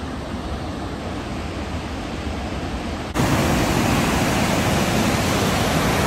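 Rushing water of a large river waterfall, Ohiopyle Falls: a steady, loud, even noise that jumps abruptly louder and fuller about three seconds in.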